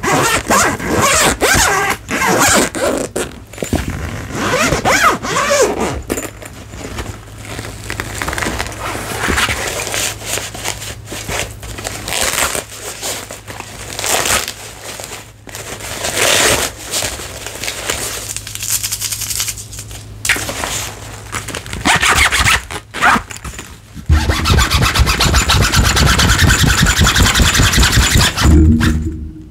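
Close-miked ASMR handling of unboxing packaging: scraping and rustling with scattered sharp clicks, ending with about five seconds of fast, continuous scratching.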